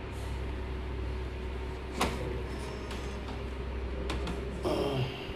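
Parts of a copier being handled during disassembly: one sharp click about two seconds in, a few lighter clicks and a brief rustle near the end, over a steady low hum.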